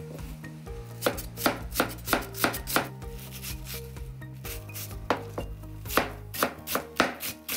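Chef's knife cutting an onion on a cutting board: the blade strikes the board in an uneven run of crisp taps, a few a second, starting about a second in, as the onion is scored and then minced.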